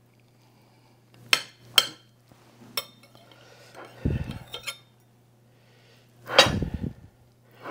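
Knife clinking and scraping against a ceramic plate as a frittata is cut into slices: a few sharp clinks, a dull knock about four seconds in, and a louder scraping clatter past six seconds.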